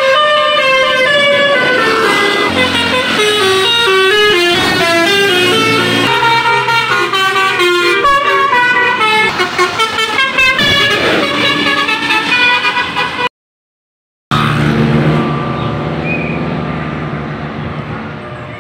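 Telolet multi-tone bus horn playing a quick melody of stepped notes, several pitches sounding together. It cuts off dead for about a second two-thirds of the way through, then comes back as a lower, steadier horn chord that fades.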